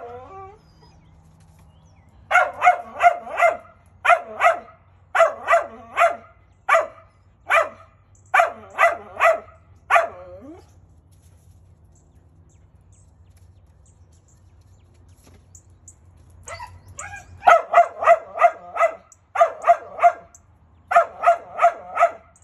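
A dog barking up at a squirrel it cannot reach, in quick runs of three to five barks. It stops for about seven seconds in the middle, then starts again.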